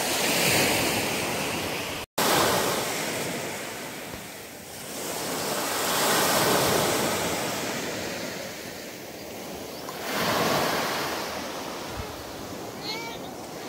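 Small waves breaking and washing up on a dark sand-and-pebble beach. The surf swells and ebbs every few seconds.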